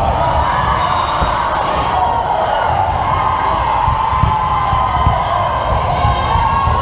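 A volleyball bouncing on a hardwood gym floor, a series of low thuds, over crowd chatter.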